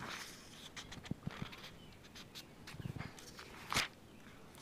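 Thin Bible pages being turned by hand: soft paper rustles and flicks, a few soft low knocks about a second in and just before three seconds, and one louder page swish near the end.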